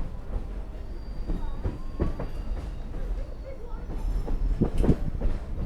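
Train rolling along the track: a steady low rumble with repeated clicks and knocks from the wheels and cars, the loudest knocks just before the end.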